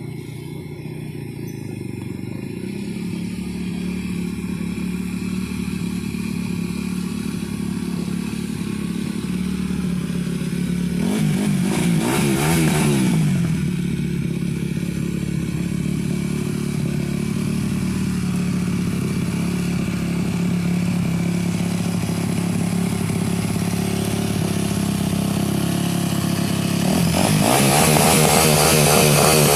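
Yamaha dirt bike engine running, growing louder over the first few seconds as the bike rides up, then running steadily. It is revved up and back down about halfway through and again near the end.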